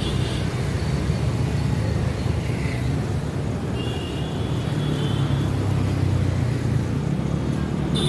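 Steady road traffic: auto-rickshaws, cars and motorbikes driving past with a continuous hum of engines and tyres.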